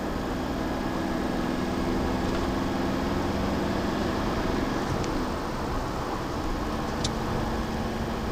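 Engine and tyre noise heard from inside a car cruising on a highway: a steady drone with a low engine hum.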